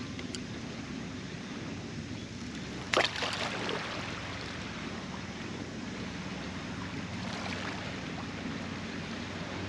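Steady wash of sea water lapping, with a faint low hum underneath and one sharp sudden sound about three seconds in.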